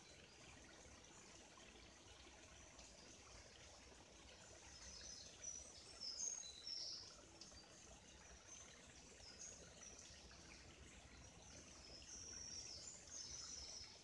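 Faint woodland bird song: clusters of short, high chirping phrases, loudest about six seconds in and again near the end, over a soft steady hiss of a running stream.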